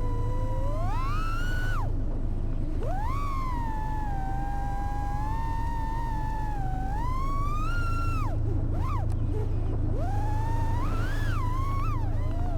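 Brushless motors of an AOS 3.5 V2 FPV freestyle quadcopter whining in flight, the pitch rising and falling with the throttle. The whine climbs sharply and then drops away about two seconds in and again near eight seconds, as the throttle is punched and cut.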